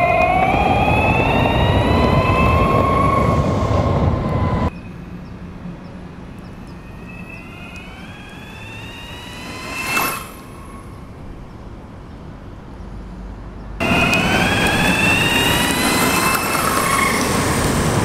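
Arc Aileron v1 electric skateboard accelerating at almost full throttle: its belt-driven motor's whine rises steadily in pitch over the rumble of the wheels. It drops back sharply about five seconds in, swells to a brief peak as the board passes about ten seconds in, and is loud again near the end, rising once more.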